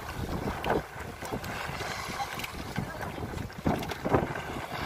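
Wind buffeting the microphone over choppy open sea, with a few louder gusts about a second in and near the end.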